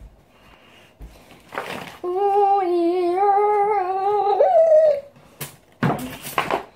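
A girl humming one long, steady note for about three seconds, with a short upward slide near the end. Short rustling noises come before and after it.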